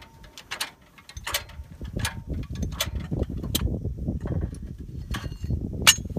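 Hi-Lift jack's climbing pins clicking into the holes of the steel standing bar as the handle is pumped with the reversing switch set to lower. A series of sharp metallic clicks, about one every 0.7 s, with a pause before a last click near the end: the freshly serviced jack is stepping down notch by notch as it should.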